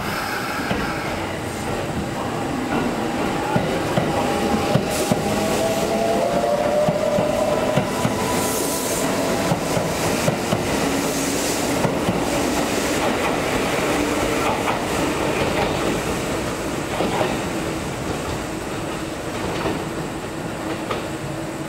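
Kintetsu 1259 series and 2410 series electric trains pulling out of a station and passing close by: a rising whine as they accelerate over the rumble and clack of wheels on rail joints, easing off as the last car goes by.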